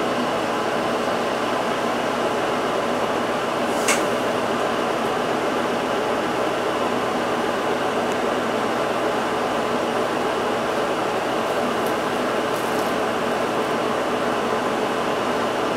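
Steady hum and whir inside a stationary Isuzu Erga Hybrid city bus, with one sharp click about four seconds in.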